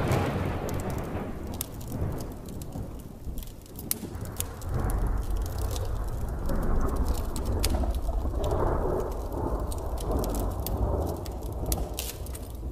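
Thunderstorm ambience: steady rain pattering, with rolling thunder rumbling in several slow swells.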